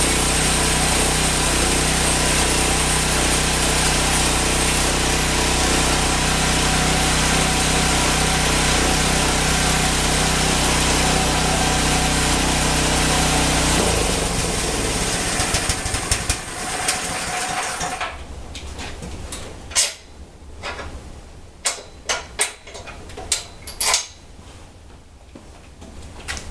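Honda GX160 5.5 HP single-cylinder engine running steadily, driving a homemade band sawmill through its belt and pulleys. About 14 seconds in the engine note stops and the wheels and blade wind down over a few seconds. This is followed by scattered sharp knocks and clatters of metal and wood being handled.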